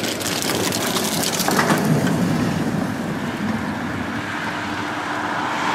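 ČKD Tatra KT4D articulated tram moving along the track, its steel wheels running on the rails with a low rumble and many small crackles and clicks.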